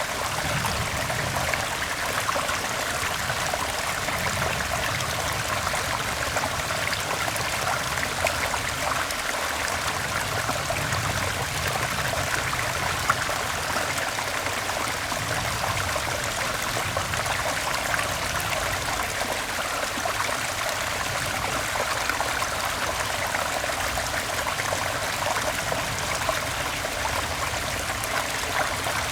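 Stream water flowing: a steady, even rush and trickle of running water.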